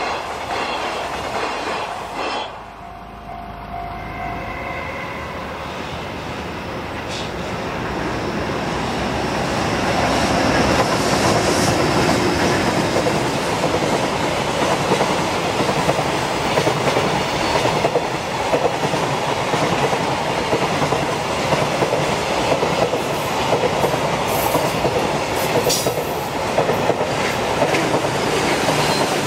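Container freight train's wagons rolling past on the rails: a steady rumble of wheels on track. It drops briefly near the start, then grows louder about ten seconds in as the wagons pass close.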